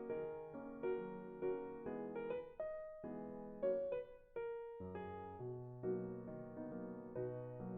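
Background music: a gentle piano melody of single notes and chords.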